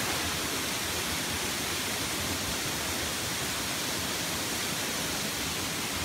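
Steady rushing of a waterfall: falling water pouring over rock, an even, unbroken noise.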